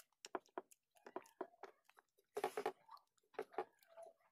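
Chewing and biting of chicken biryani eaten by hand: a faint, irregular run of small wet clicks and crunches, with a louder burst about two and a half seconds in.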